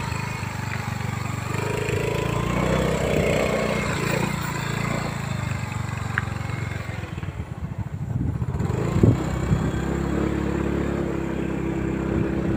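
Small motorcycle engine running steadily at a low rumble while riding along a bumpy dirt track, with a sharp knock about nine seconds in.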